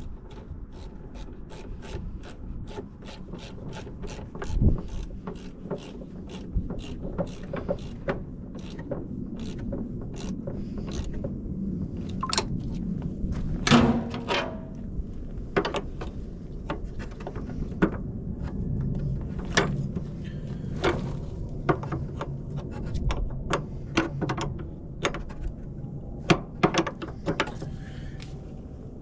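Ratchet wrench clicking in short, repeated strokes as a battery terminal clamp is tightened down, with a couple of louder metal knocks.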